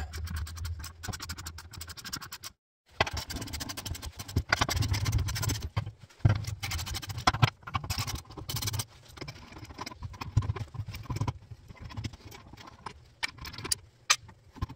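Hand ratchet clicking rapidly as transmission mount bolts are backed out, in several spells with metallic scraping between them.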